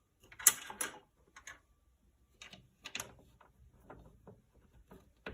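Handling noise as a replacement header unit is set in place against its fixing holes: a louder clatter of knocks and scrapes about half a second in, then a scattering of small clicks and ticks.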